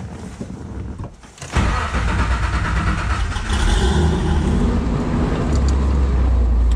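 Nissan-based rock crawler's engine cranking on the starter, then catching about a second and a half in and running, revved a little before settling to a steady low note near the end.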